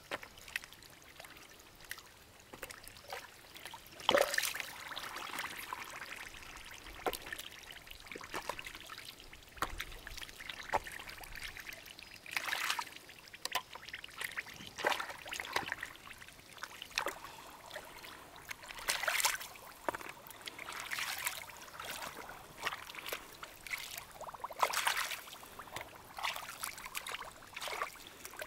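Hands groping through shallow muddy water for mussels and snails: irregular splashing, trickling and dripping, with a louder, sharper splash about four seconds in.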